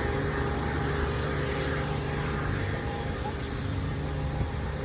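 Steady low rumble with a faint steady hum, like vehicle or machinery noise at an outdoor site.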